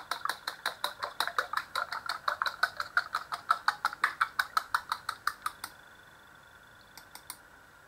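A fork beating an egg in a small ceramic bowl: rapid, even clicks of metal on ceramic, about seven a second, that stop about two-thirds of the way through.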